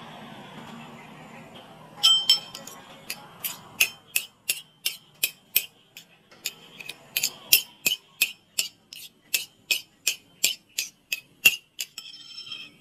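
Metal spoon beating raw eggs in a bowl, clinking against the bowl's side about three times a second, starting about two seconds in.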